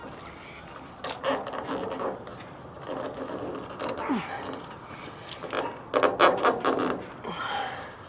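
Scraping and clicking of metal parts being pushed and twisted into the old taillight housing of a 1966 Ford F250, a fitting that is stiff and will not seat easily. It comes in several bouts, the loudest about six seconds in.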